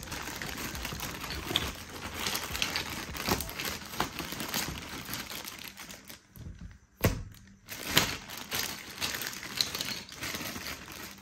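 Plastic packaging crinkling and rustling as a tripod is unwrapped and handled, with many small clicks and a sharp knock about seven seconds in, then another a second later.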